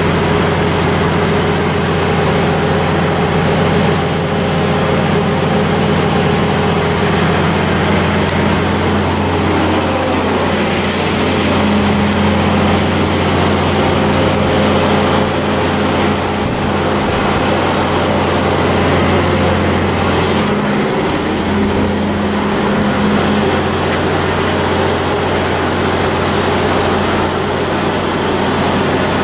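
Cummins N14-G2 inline-six diesel engine of a 350 kW standby generator set running steadily at its governed 1800 rpm.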